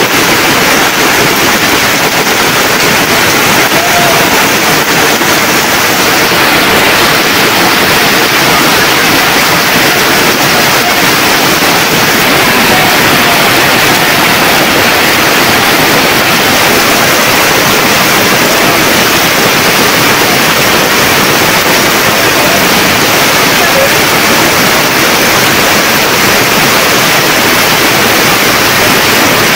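Torrential rain falling steadily on corrugated tin roofs and wet ground, with water pouring off the eaves.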